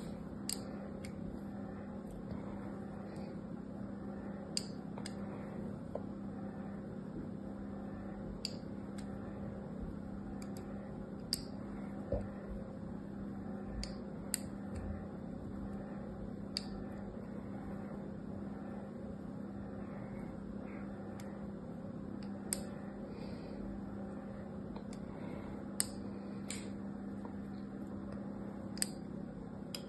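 Thin metal pick scoring lines into a bar of soap: a dozen or so short, crisp scratches at uneven intervals of a second or more, over a steady low hum.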